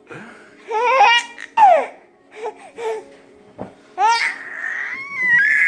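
Baby laughing and squealing: short high giggles early on, then a long high-pitched squeal from about four seconds in and another starting near the end.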